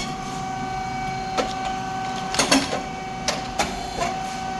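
SYP5804T rice cake popping machine running with a steady mechanical hum, and half a dozen short, irregular clicks and knocks over it.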